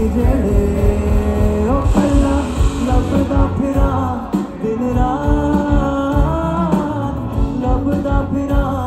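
Live concert music: a band playing over a heavy, steady beat with a singer's voice carried over it.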